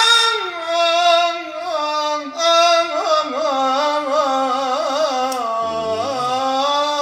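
A solo voice singing one long melismatic phrase in Arabic classical tarab style, holding and ornamenting a vowel with small wavering turns and no instrumental accompaniment.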